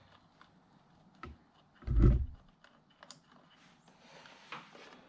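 Hands handling wiring and connectors on an outboard motor's electrics, making small scattered clicks and rustles, with one loud low thump about two seconds in.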